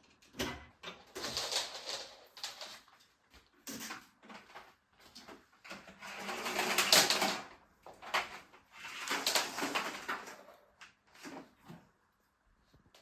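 Bed linen rustling as it is handled, in a string of bursts, the longest about six to seven and a half seconds in.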